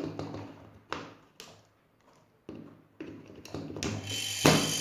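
A few knocks and clicks of handling, then about four seconds in a refrigerator compressor motor starts up with a steady electric hum and whine, with a knock near the end.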